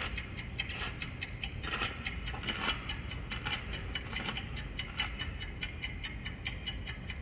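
Clock ticking, quick and steady.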